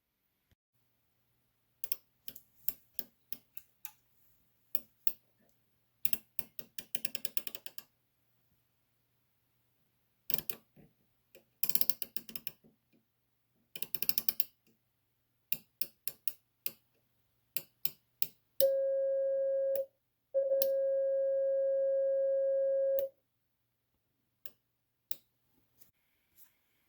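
NATO Morse key clicking as its lever is tapped, in single clicks and quick rattling runs. Then a keyed sidetone oscillator gives two steady, mid-pitched beeps, the first about a second long and the second nearly three seconds long, while the key is held down. A few more clicks sound near the end.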